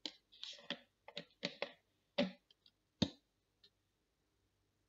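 A quick series of sharp clicks and knocks, about eight in the first three seconds and one faint one a little later, then quiet: handling noise as the oil bottle is brought over the metal tray.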